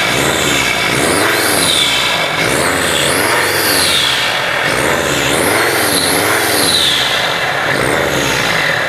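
Mercedes-Benz Sprinter's turbocharged engine revved up and down about once a second, with a high whistle rising and falling with each rev: the turbocharger whistling, the sign of a turbo fault.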